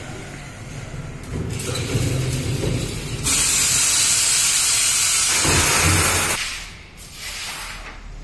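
Large flag heat press, with a rumble as it moves, then a sudden loud hiss of air that holds steady for about three seconds and fades away.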